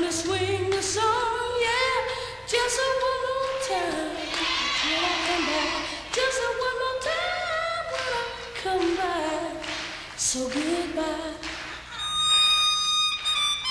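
A woman singing a melody with wavering vibrato, in a live band performance. About twelve seconds in, an instrument comes in with steady held notes.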